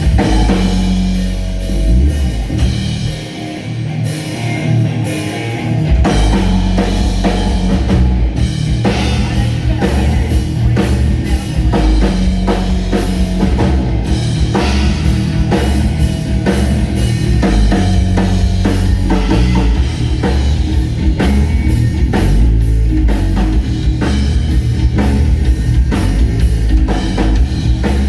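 Rock band playing live with a drum kit and electric guitar at a sound check. The bass drops out for a few seconds early on, then the full band comes back in.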